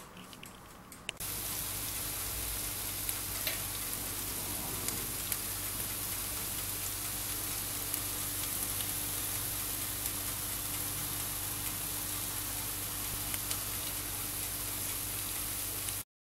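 Zucchini and tomato slices sizzling on a baking tray in a hot oven: a steady hiss with scattered small crackles over a low steady hum. It starts abruptly about a second in.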